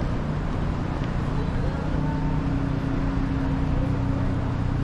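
Steady road traffic on a busy city avenue: a continuous rumble of engines and tyres, with one vehicle's steady engine drone coming in about a second in.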